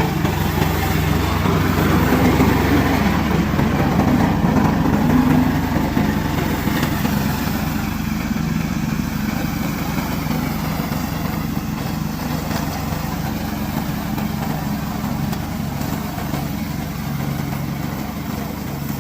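Remote-controlled slope mower running steadily: a continuous engine note with an even low hum and a broad rush over it, easing slightly in loudness as it goes.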